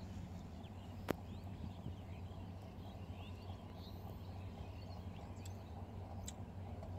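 Open-air rural ambience: faint bird chirps over a steady low rumble, with a sharp click about a second in and a smaller one near the end.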